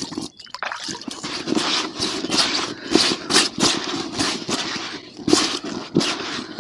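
Hands working damp fishing groundbait in a soft fabric bucket, up close: scraping and rustling in irregular strokes.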